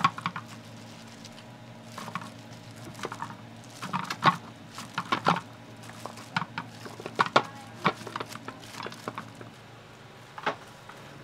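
Irregular crinkling of a plastic bag and plastic gloves, with soft thuds and clicks, as cooked pork back bones are lifted from a basket and stacked into a metal hot pot. A faint steady low hum runs underneath.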